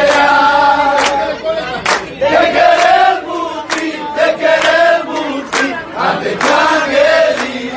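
A crowd of guests singing a song together in chorus and clapping in time, about one clap a second.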